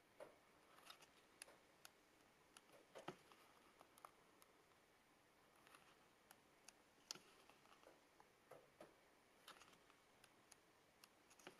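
Pages of a small paperback book turned by hand: faint, irregular paper flicks and soft rustles, with a few sharper ticks as pages snap free of the thumb.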